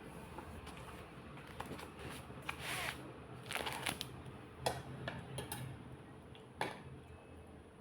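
Close-up eating sounds: a person chewing and smacking on soft cooked vegetables, with short wet bursts and a few sharp clicks, likely utensils against a plate.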